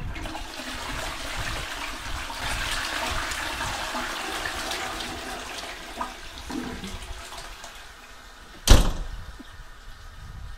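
A toilet flushing: water rushing, slowly dying away over about eight seconds. Near the end, a single loud bang.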